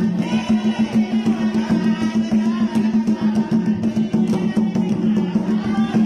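Loud dance music with a steady drum beat.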